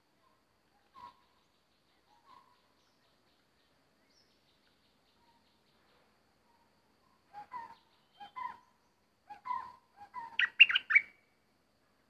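Bulbul calling: two faint single notes early on, then from about seven seconds in a run of short chirping phrases that grow louder, loudest just before the end.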